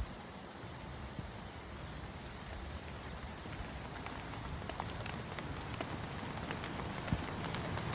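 Steady rain falling, a continuous hiss dotted with many sharp individual drop ticks, which grow a little louder and more frequent over the second half.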